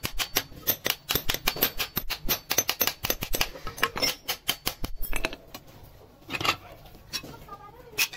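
Small hammer tapping quickly on the meat cleaver's wooden handle as it rests on a steel anvil block, about six light taps a second. The tapping stops about five seconds in, and there is one more tap a little later.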